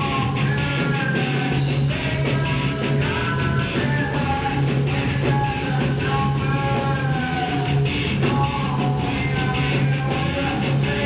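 Live rock band playing: electric guitar, bass and drums, with a bending melody line over a steady, heavy bass.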